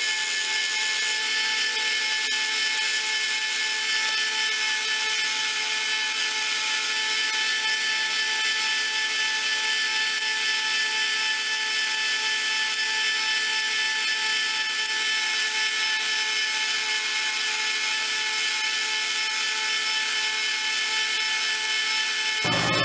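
Small power tool, such as a grinder, buffer or rotary tool, running steadily with a constant high whine, used to sharpen and polish a screwdriver. Its sound changes abruptly just before the end.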